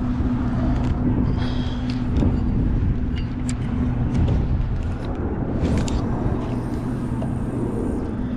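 A low, steady engine hum that drops away about five seconds in and comes back near the end, over a rumble of wind on the microphone, with scattered light clicks.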